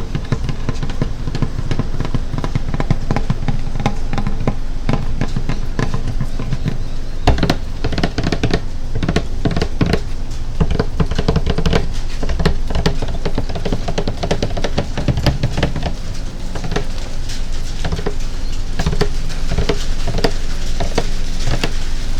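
Fingers tapping rapidly and unevenly on a hollow plastic water container, giving dense drum-like knocks with a steady low hum underneath.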